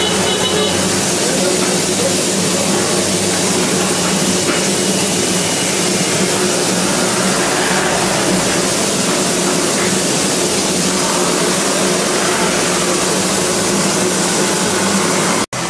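Steady loud hiss of steam escaping from two Darjeeling Himalayan Railway saddle-tank steam locomotives standing in steam, with a low steady hum beneath it. It breaks off suddenly near the end.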